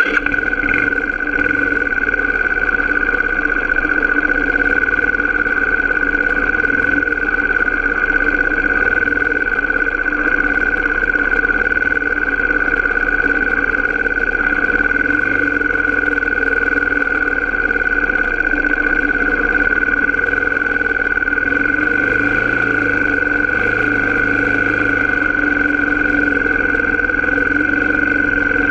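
Off-road vehicle engine running at a steady, unchanging speed while the vehicle rides along a dirt trail.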